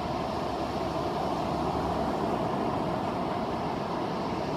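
Steady rushing noise of surf and wind at the beach, with no distinct events.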